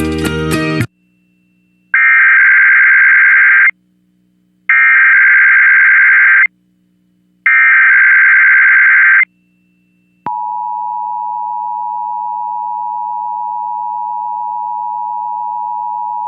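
Emergency Alert System test on broadcast radio: programme music cuts off under a second in, then the SAME digital header sounds as three identical bursts of warbling data tones, each about two seconds long and a second apart. About ten seconds in, the steady two-tone EAS attention signal starts and holds.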